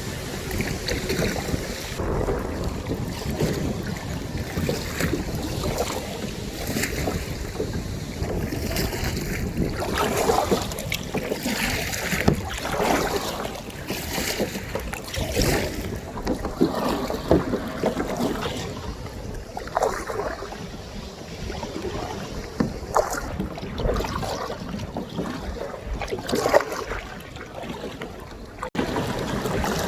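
Wind buffeting the microphone, with water splashing and sloshing around a kayak in irregular bursts. Near the end the sound cuts off briefly and resumes.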